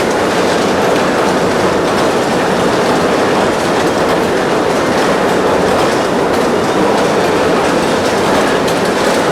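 Brass hot-forging machines running together in a workshop: a loud, dense, steady mechanical clatter.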